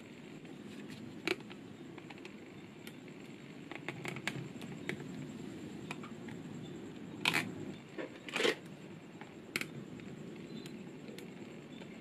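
Small neodymium magnetic balls clicking and scraping as they are snapped into place on a model, with a sharp louder click about a second in and a few more about seven to ten seconds in.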